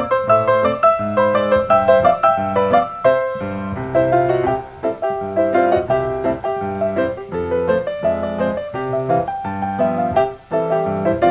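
Background piano music, a lively run of short notes played without pause.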